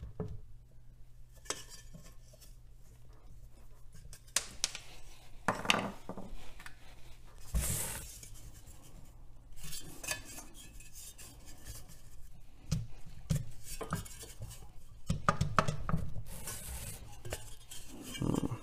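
Small metal clicks and scrapes of a flathead screwdriver working the set screw on the hub of a 1949 Emerson 2450-G desk fan's blades, then clinks and rubbing as the metal blade assembly is gripped and twisted on the motor shaft. One louder clack a little before halfway, and a busier spell of rubbing and clicking near the end.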